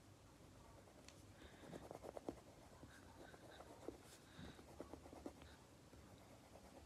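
Faint scattered scratching of drawing on lined notebook paper, in short strokes with pauses between them.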